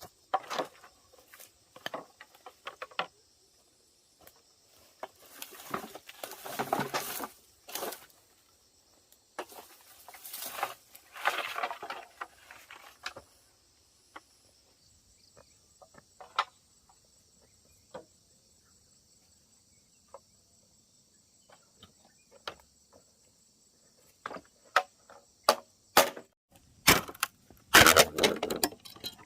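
Steady high-pitched insect chirring, with repeated bursts of rustling and sharp knocks, loudest near the end.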